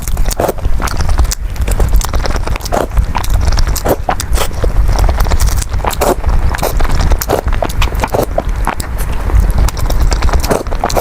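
Close-miked eating sounds: wet chewing and lip smacking from someone eating congee and small steamed buns, many irregular sharp clicks a second over a low rumble.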